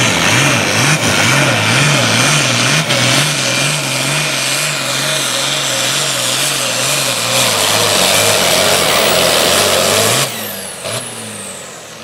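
International Harvester 1066 farm tractor's turbocharged six-cylinder diesel running flat out under load pulling a sled, its engine note wavering rapidly up and down, about twice a second. About ten seconds in, the engine is throttled back and drops away, and a high whistle falls off with it.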